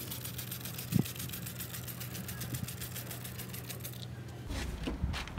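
A steady low mechanical hum with a fast, even ticking, like a small machine running. There is one knock about a second in, and the ticking stops near the end.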